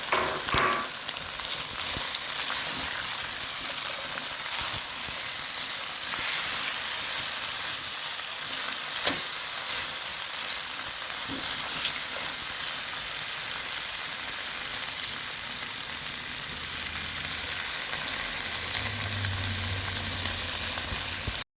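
Chopped bell peppers, onion and tomato sizzling in hot oil in a pot, a steady frying hiss, with a few light taps of a spoon stirring. The sound cuts off suddenly near the end.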